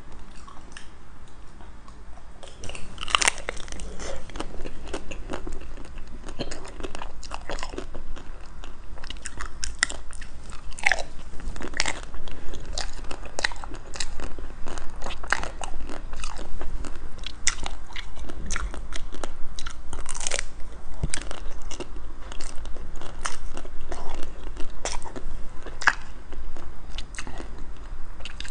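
Close-miked biting and chewing of black-coated ice cream, the coating crunching and crackling in a dense run of sharp cracks that gets louder about two and a half seconds in.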